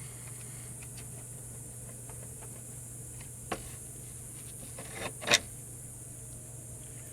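Metal clinks and knocks from hand work on the bus's bulkhead: scattered small clicks, a sharp knock about three and a half seconds in, and a louder clank just after five seconds, over a steady low hum.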